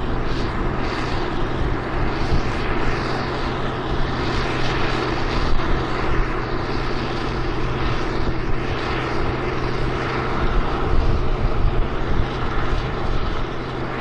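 International 1460 Axial Flow combines running steadily in the field: a constant engine hum under a broad rushing noise.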